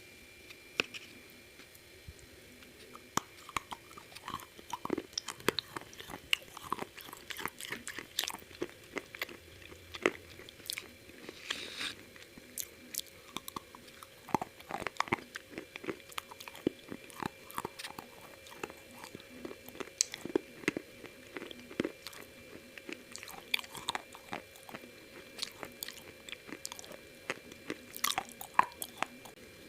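A person biting into and chewing KFC fried chicken, the crispy coating crunching in many irregular sharp crunches.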